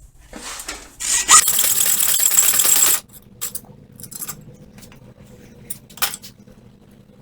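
Hacksaw cutting a slit into square mild steel bar, a loud rasping burst of about two seconds beginning about a second in, followed by a few faint clicks and knocks.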